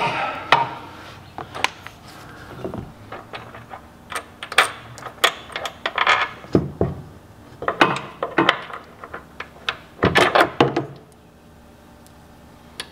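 Small steel bolts and washers being handled and fitted into a metal bracket: irregular clinks, clicks and rattles, with a bag rustling at the start. The handling goes quiet about eleven seconds in.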